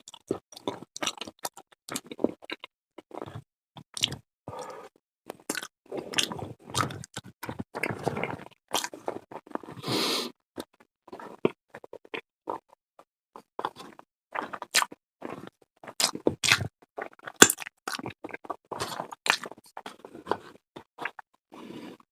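Close-miked eating: chewing with a steady run of irregular wet mouth clicks and smacks.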